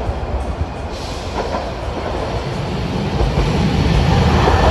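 Hiroden 700-series streetcar rolling in on street-running track, its wheel and running rumble growing louder after about three seconds as it draws near.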